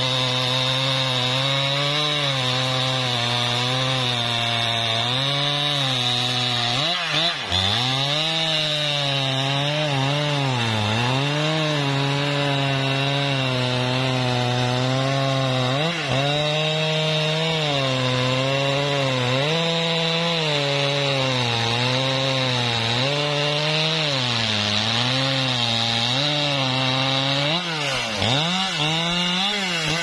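Husqvarna 395 XP 94 cc two-stroke chainsaw running at full throttle, cutting through a trembesi (rain tree) log. The engine note sags and recovers again and again as the chain bites into the wood. Near the end the throttle is let off and the pitch drops.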